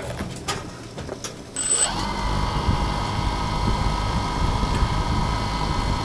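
A few light clicks and a short high beep, then about two seconds in a quadcopter's motors and propellers start and run steadily at low speed.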